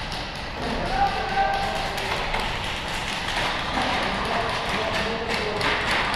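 Indistinct distant voices echoing around a large open warehouse, with taps, thuds and footsteps from players moving.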